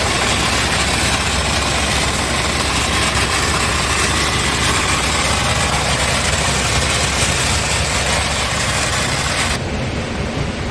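460 hp Euro 2 diesel engine of a 2000 Scania truck idling steadily, heard close to the engine. About a second before the end the sound turns duller and loses its high end.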